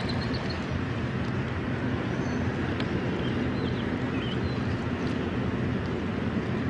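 Steady hum of a fishing boat's motor under wind and water noise, with a few faint high chirps midway.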